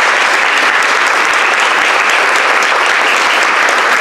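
Audience of a few dozen people applauding steadily, a dense patter of hand claps.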